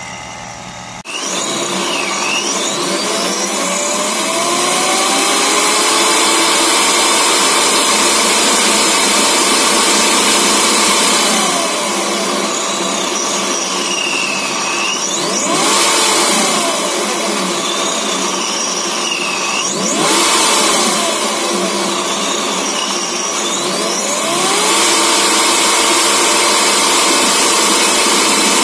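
Supercharged Jeep Wrangler JK 3.6 L Pentastar V6 being revved: the engine climbs and holds at high revs for several seconds, drops back, blips sharply twice, then climbs and holds again. A high supercharger whine rises and falls with the revs.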